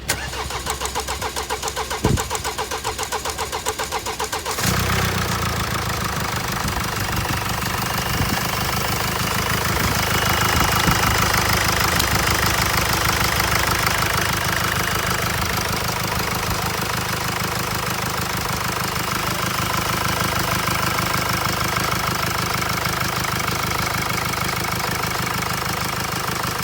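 Mercedes OM654 four-cylinder diesel engine cranked by the starter with a rapid, even pulsing for about four and a half seconds, then catching and running steadily.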